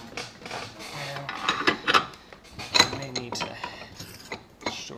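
Metal clinking and clanking as a steel knife is handled and clamped in a cast-iron bench vise, in a series of irregular sharp knocks with the loudest about two and three seconds in.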